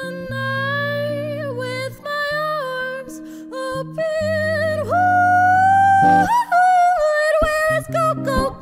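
A woman singing long held notes with vibrato, sliding between pitches, over sustained acoustic guitar chords.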